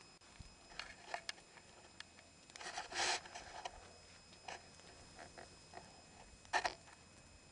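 Wood campfire crackling: scattered sharp pops and snaps from the burning logs, with a louder half-second rustle about three seconds in and a strong pop near the end.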